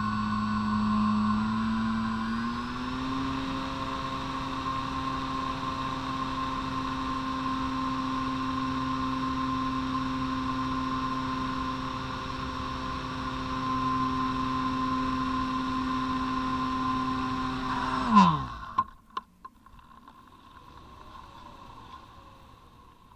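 Onboard sound of a Parkzone Radian Pro motor glider's brushless electric motor and propeller: a steady whine that steps up in pitch about two seconds in and holds. About eighteen seconds in it winds down sharply and stops as the throttle is cut, leaving faint wind noise and a few light clicks while the glider glides.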